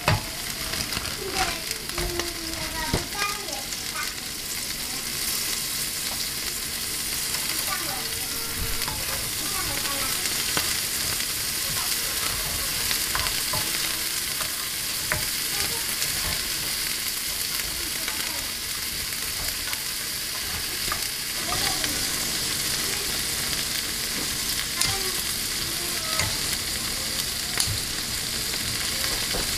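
Whole head-on shrimp sizzling as they fry in butter in a nonstick frying pan, stirred and turned with a wooden spatula. A steady hiss runs throughout, with scattered small pops and spits from the hot fat.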